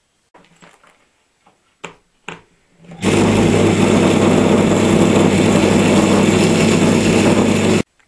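Hotpoint washing-machine three-phase induction motor switched on from single-phase mains through a 13 microfarad capacitor, giving a loud steady humming buzz with a strong low mains hum, about three seconds in, then cutting off suddenly just before the end. It throws off a wisp of smoke, which the owner puts down to a capacitor that may be too big, causing too high a voltage. A few small clicks come before it starts.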